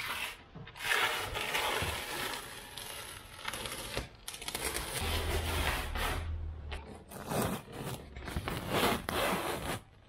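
Irregular rustling and scraping of fibreglass cloth and sheeting being handled and pressed into a corner of a fibreglass hull.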